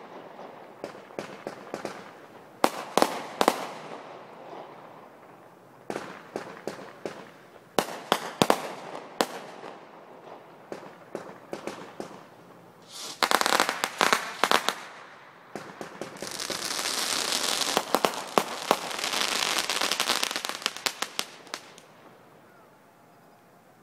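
Aerial fireworks going off: clusters of sharp bangs and crackling every few seconds, then a long hissing rush full of crackles that dies away a couple of seconds before the end.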